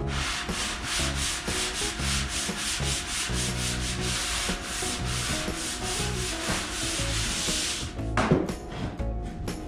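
Hand sanding of dried drywall joint compound: quick, even back-and-forth rasping strokes, about four a second, that stop about eight seconds in, followed by a short sharp sound.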